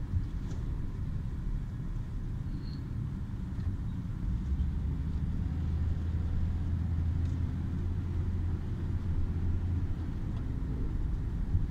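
Car driving slowly on a town street: a steady low rumble of engine and tyres, with a deeper drone from about four to ten seconds in.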